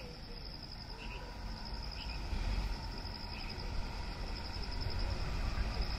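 Steady, finely pulsing high-pitched insect trill, with short chirps about once a second, over a low rumble.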